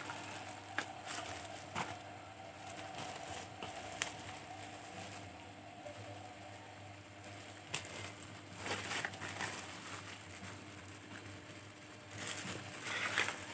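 Plastic packaging crinkling, with scattered light clicks and taps as pens are handled.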